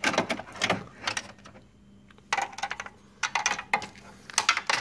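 Plastic and metal parts clicking and scraping in short clusters, about six in all, as a transfer roller is fitted back into its seat inside a Xerox Phaser 3330 laser printer.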